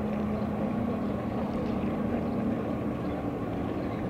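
A motor engine hums at a steady low pitch over a constant wash of outdoor background noise; partway through, its tone moves slightly higher.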